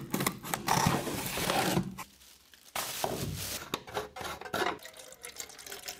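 Scissors slitting the packing tape on a cardboard box, with cardboard scraping and rustling for about two seconds. After a short pause come light clicks and rubbing as the plastic cap on a fog machine's fluid tank is handled.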